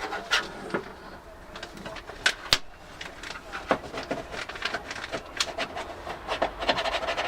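Sharp clicks and knocks of metal parts being handled inside a car door: the door lock mechanism and its linkage rods being fitted. The clicks come irregularly, then in a quicker run of light clicks near the end.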